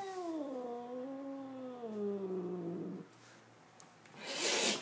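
A house cat gives one long, drawn-out yowl that slowly falls in pitch and stops about three seconds in. Near the end comes a short, sharp hiss. These are the warning sounds of an agitated, defensive cat.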